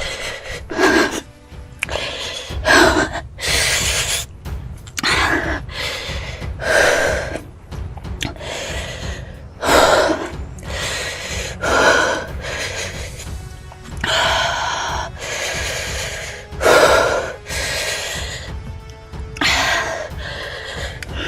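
Sharp gasps and heavy breaths every second or two, a person sucking air through a mouth burning from an extremely hot chili chip, over steady background music.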